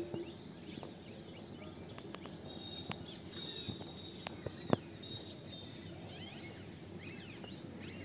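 Faint chirping of small birds over a steady outdoor background, with a few sharp clicks near the middle.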